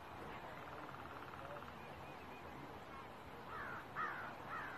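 Birds calling: a fast rattling trill about half a second in, then three short calls that rise and fall near the end, the last part the loudest.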